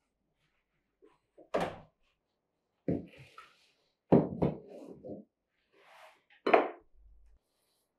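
A blue enamel basin and a small enamel pot set down on an oilcloth-covered table, making several dull clunks and knocks with quiet between them.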